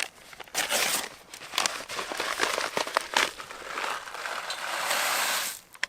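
Crinkling and rustling of a dehydrated meal pouch being handled and its contents tipped into a cooking pot, with a longer steady rustle from about four seconds in that stops just before the end.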